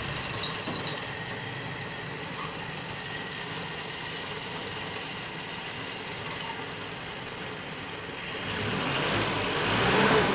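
Jeep engine idling steadily, running again after more than five years without being started, with a few light clicks in the first second and the sound growing louder near the end.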